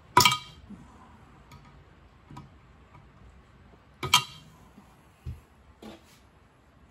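Two sharp metallic clanks with a brief ringing, about four seconds apart, then a couple of lighter knocks: metal tools and parts being struck or set down.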